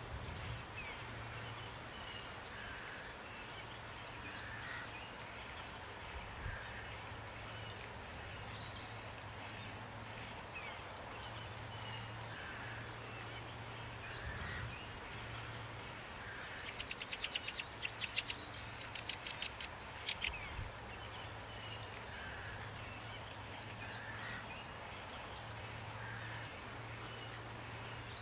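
Steady rain with songbirds singing: short, high, falling chirps repeat throughout, and a rapid rattling trill comes about 17 to 20 seconds in.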